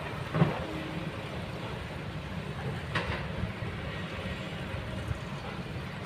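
Kobelco excavator's diesel engine running steadily, with two short knocks, about half a second in and again about three seconds in.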